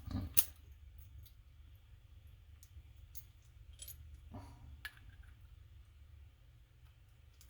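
Faint, scattered metallic clicks and taps from a padlock and its small parts being handled while it is taken apart, with one sharper click about half a second in.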